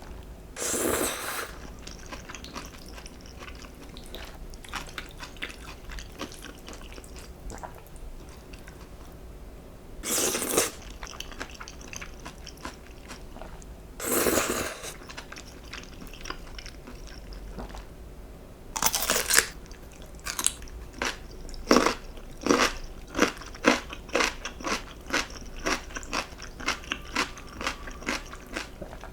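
Close-miked eating sounds: a few short louder mouth noises, then a quick run of crisp crunching chews, about two a second, from about two-thirds of the way through.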